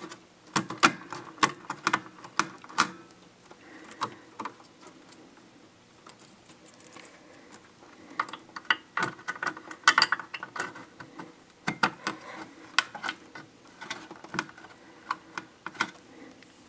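Irregular clicks, rattles and small knocks of wire harness connectors being handled and pushed onto a pinball machine's circuit board.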